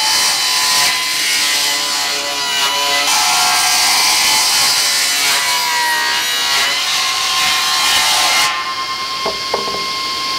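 Felder BF6/31 combination machine's circular saw blade cutting through an applewood log with the bark on, a loud steady sawing noise. A little past eight seconds in the cut ends and the blade runs on freely with a steady whine, with a few light knocks.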